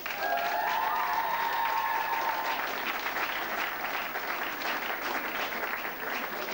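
A large crowd applauding steadily, with high-pitched cheers held over the first couple of seconds.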